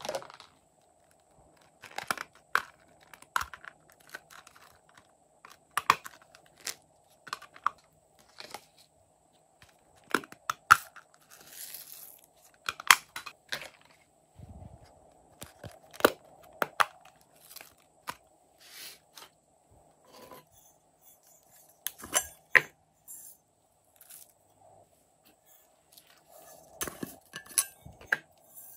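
Hard plastic toy cases and containers being handled and opened, giving irregular sharp clicks and taps, with a brief rustling pour of sequins and confetti into slime.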